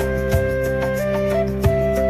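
Calm instrumental meditation music: a flute-like melody holding long notes over a sustained low drone, with a soft percussive beat.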